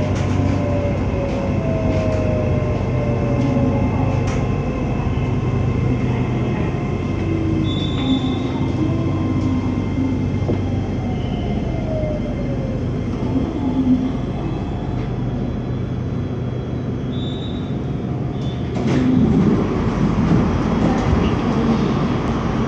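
Inside an electric commuter train pulling into a station: several motor whines fall in pitch as the train slows, over a steady low hum. A louder rushing noise comes in near the end.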